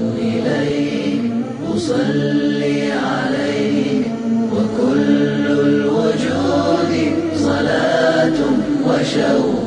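Background nasheed: a group of voices chanting a melody in harmony.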